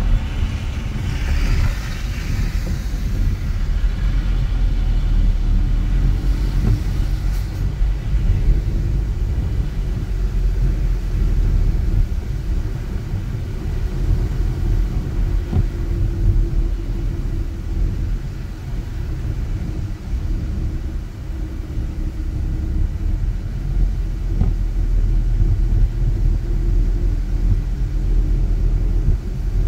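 Car driving: a steady low rumble of engine and road noise, with a brief hiss that fades out in the first few seconds.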